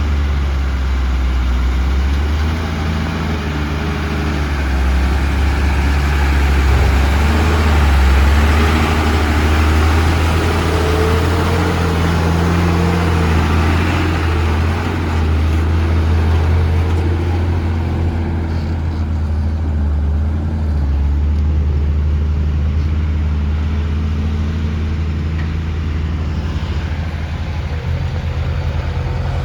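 Heavy diesel engine running under load. It grows louder and brighter from about five seconds in and settles back to a steadier, lower note after about sixteen seconds.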